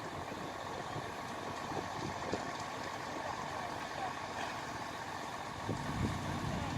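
An engine running steadily at idle, like a heavy vehicle, with faint scattered knocks.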